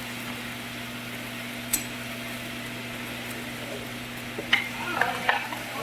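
Arc welding on a steel pipe joint: the steady crackling hiss of the arc over a low hum, with a few sharp clicks near the end.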